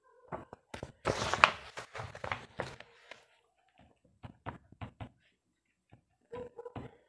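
Handling noise: a loud rustle about a second in, then a few sharp taps and knocks.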